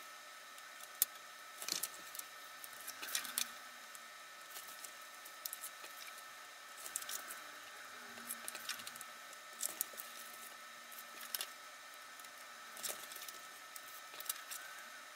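Cardstock and folded paper dividers being handled and pressed down with score tape: scattered light rustles, taps and sharp clicks, over a faint steady hum.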